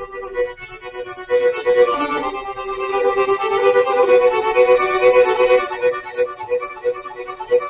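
Violin playing a Celtic and Native American–flavoured melody, with a short note pulsing steadily beneath it about twice a second.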